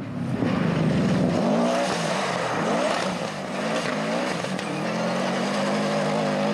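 Subaru Impreza rally car's turbocharged flat-four engine revving hard on a gravel stage, its pitch repeatedly rising and dropping back through gear changes, over a steady hiss.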